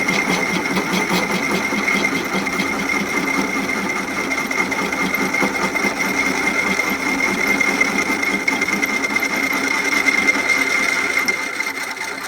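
Porter-Cable benchtop drill press switched on and running, its motor and spindle giving a steady whine with a fast, even chatter beneath it. The spindle turns a newly fitted keyless chuck on an MT2-JT33 arbor, fitted to cure runout, and it is called "ten times better". The sound eases off slightly near the end.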